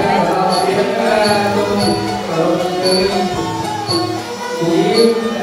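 Traditional music: a wavering melody on instruments over small cymbals ticking a steady beat about twice a second.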